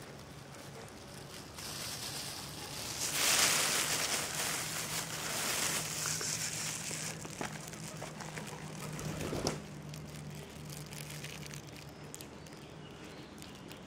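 Thin plastic bag crinkling and rustling as a hand works fish out of it, loudest for a few seconds in the middle, with a few sharper crackles. A low steady hum runs underneath.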